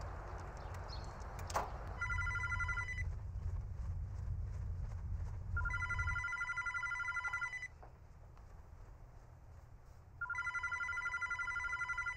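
A telephone ringing three times, each ring a steady electronic tone lasting one to two seconds. During the first half a low outdoor rumble runs underneath, with a sharp click about a second and a half in.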